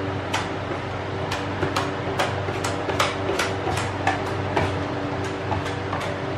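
Putty knife scraping wood filler across a plywood speaker cabinet: short, quick strokes, about two a second, over a steady low hum.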